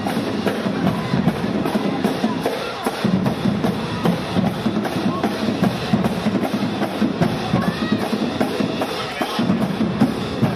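Marching band drumline playing a steady, loud beat on bass drums and snares.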